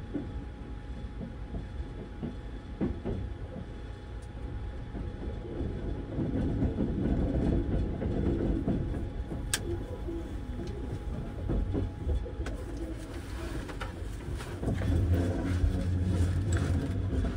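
Sunrise Express sleeper train, a 285 series electric train, pulling into the station, heard from inside its compartment. A steady low rumble of wheels on rail, with scattered clicks over joints and points and one sharp click about ten seconds in; it grows louder near the end.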